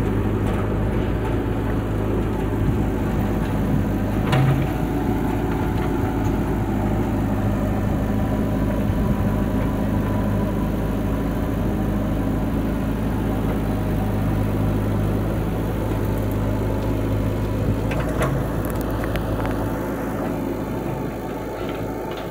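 Diesel engines of a JCB 3DX backhoe loader and a Mahindra tractor running steadily, with two brief knocks, about four seconds in and again near the end.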